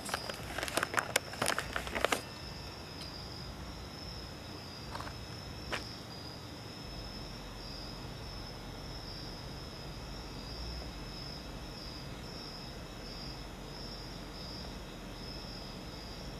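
Crickets chirping in a steady, high, pulsing trill. A quick run of sharp clicks and knocks in the first two seconds is the loudest sound, followed by two single clicks around five and six seconds in.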